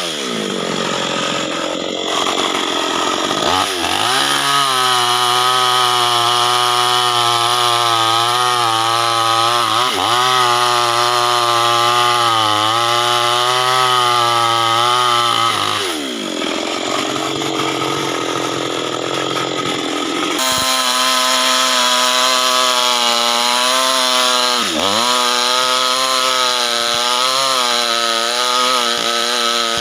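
Chainsaw running at high revs, cutting acacia wood; its engine note sags as the chain bogs into the cut and climbs back several times.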